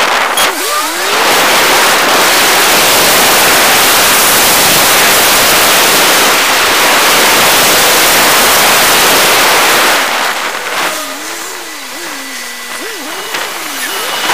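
A car driving, heard through a cheap action camera's microphone as a loud, even rush of road and engine noise. About ten seconds in it drops in level, and a pitched sound wavers quickly up and down.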